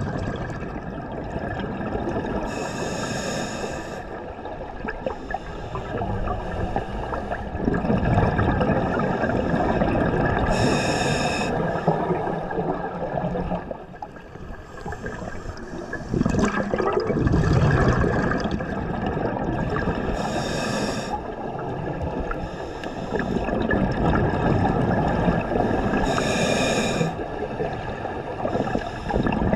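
Scuba diver breathing through a regulator underwater: a steady bubbling gurgle, broken four times by a brief hiss of a breath, roughly every eight seconds.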